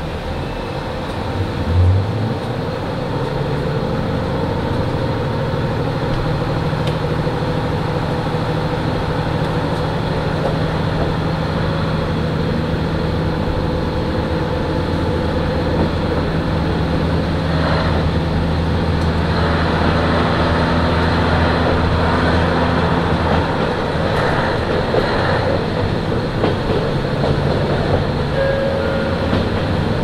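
KiHa 40 diesel railcar pulling away under power: a thump about two seconds in, then the diesel engine's steady low drone, with wheel and rail rumble building as the train gathers speed.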